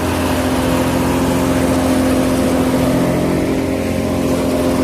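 Farm machinery engine running steadily at a constant pitch, with a mechanical hum.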